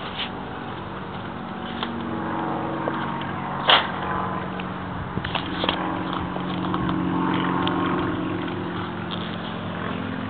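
A steady engine drone with a few held tones, growing louder through the middle and easing off near the end. A sharp click comes about four seconds in.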